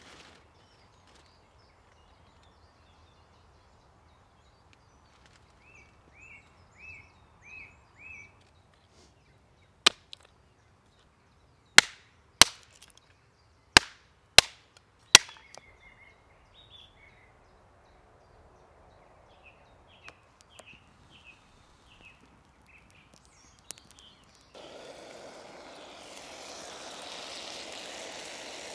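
A machete blade chopping kindling on a wooden stump: six sharp strikes over about five seconds. A small bird chirps in short runs before and after. Near the end a steady sizzle starts suddenly as steak fries in a camping pan.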